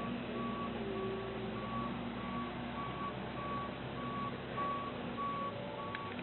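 2009 New Holland L175 skid steer's backup alarm beeping at one steady pitch, about one and a half beeps a second, as the machine reverses, with its engine running underneath. The beeping stops near the end.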